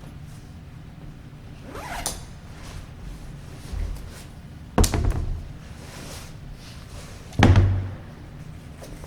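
Squash ball being struck by a racket and rebounding off the court walls during solo practice: three sharp cracks about two and a half seconds apart, each with a short echo, and softer thuds of the ball between them.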